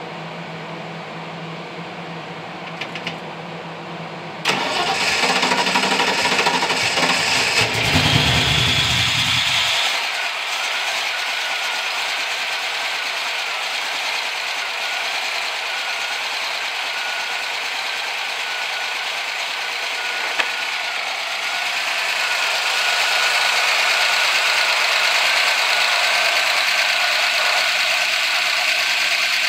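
Electric radiator cooling fans running, then about four and a half seconds in the 1988 Mustang GT's 302 cubic-inch (5.0 L) small-block Ford V8 cranks and starts quickly. It runs loud for about five seconds, then drops to a steady idle under the sound of the fans.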